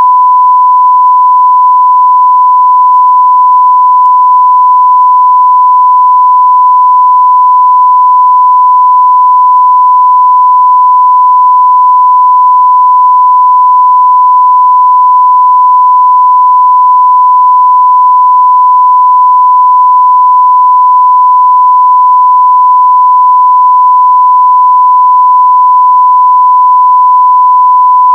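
Continuous censor bleep: a loud, steady pure tone of about 1 kHz held without a break, the kind used to mask swear words.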